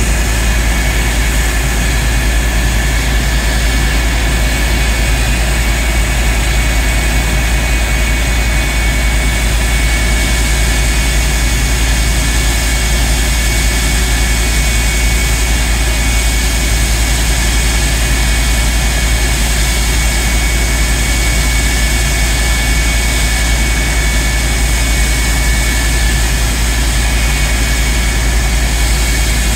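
Canadair CF-104D Starfighter's J79 turbojet running steadily at ground idle: a constant high whine over a heavy low rumble.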